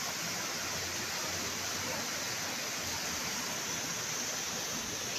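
Steady rushing hiss of a waterfall spilling down a cliff face into a pool.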